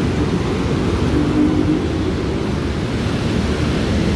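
Steady low rumble of road traffic mixed with wind buffeting the phone's microphone, with a faint passing engine tone for a moment about a second in.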